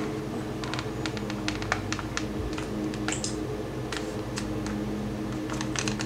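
Irregular light clicks and taps over a steady low hum.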